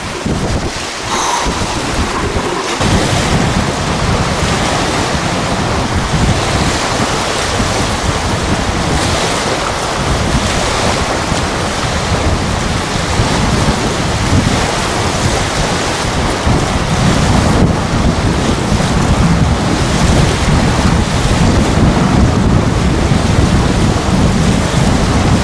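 Strong gusting wind buffeting the camera microphone in a steady low rumble, over choppy, wind-driven lake waves washing onto a sandy shore.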